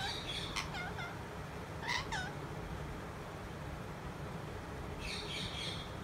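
Pet green parakeet calling: a few short squawks with bending, curved notes in the first second and again about two seconds in, then a quick run of higher chattering notes near the end.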